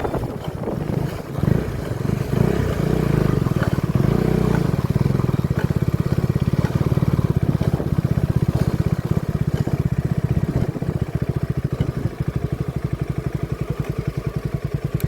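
KTM 250 Adventure's single-cylinder engine running, its exhaust beating in a rapid, even pulse that settles into a very regular rhythm from about six seconds in.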